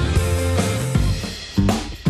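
Background music with a drum beat and steady low bass notes.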